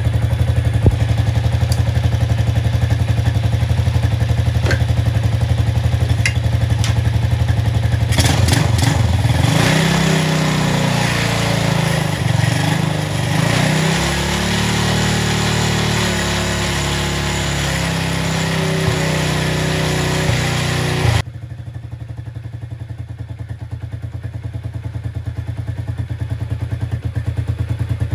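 Motorcycle engine freshly rebuilt with a new cylinder and piston, running in its first minutes after the rebuild. It speeds up about a third of the way in, and about three quarters of the way through the sound drops suddenly to a quieter, lower run that slowly grows louder.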